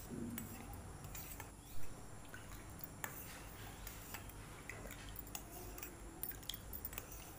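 Steel spoon stirring water in a steel bowl: faint scattered clinks and swishes, with a louder soft thump about two seconds in.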